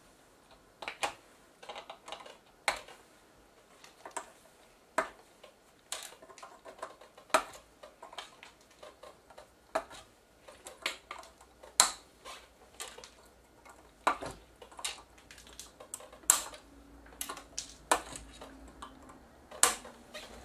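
Side cutters snipping off the excess leads of newly fitted capacitors on a circuit board: a string of sharp clicks, one or two a second, at uneven intervals.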